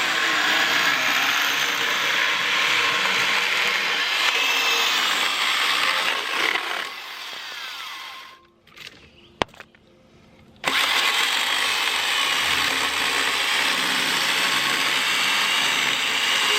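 Vintage Milwaukee 6210 electric chainsaw cutting through a black locust log: motor and chain running steadily through the wood. About seven seconds in it winds down with a falling whine and stops, there is a single click, and some three seconds later it comes back at full speed and carries on cutting.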